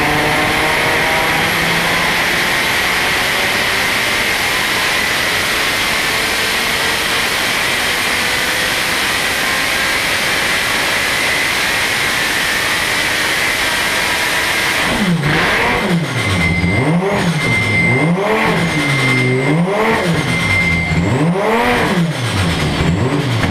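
Audi TT RS 2.5-litre turbocharged five-cylinder engine running on an engine dyno, loud and steady for about fifteen seconds, then revved up and let fall about five times in quick succession. It cuts off at the end.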